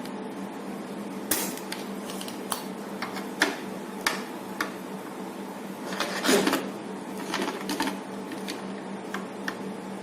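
Small clicks and taps of hand tools working on an LED street-light board while a dead SMD LED bead is desoldered, over a steady low hum. The clicks come singly at first, then bunch into a short run of scraping taps a little past halfway.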